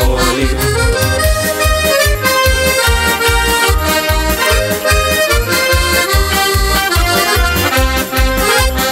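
Instrumental folk music led by an accordion playing held, steady notes over a regular bass beat.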